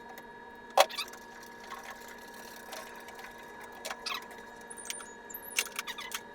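Scattered small metallic clicks and clinks of hardware and hand tools as casters are fastened to the base of a steel rolling tool chest: one sharp click about a second in, then a run of lighter clicks near the end, over a faint steady hum.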